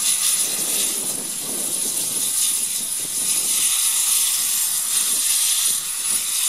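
Steady hiss of steam escaping from a standing Great Western Railway steam locomotive.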